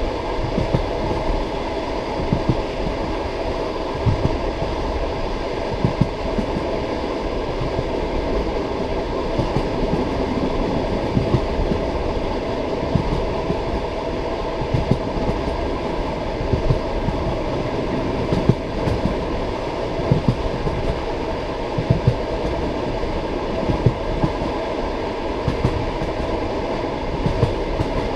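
Passenger train wheels rolling along the track, heard from on board: a steady rumble broken every second or two by deep clickety-clack knocks as the wheelsets cross rail joints, often in pairs.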